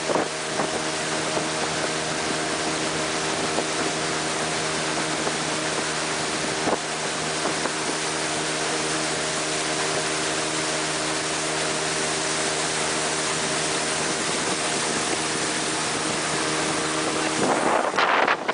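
Motorboat engine running steadily under a loud rush of wind and water. Near the end the engine tone drops away and a rougher rushing noise takes over.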